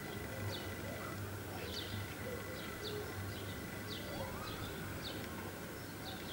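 A bird chirping over and over: short falling chirps about every half second, over a faint steady whine.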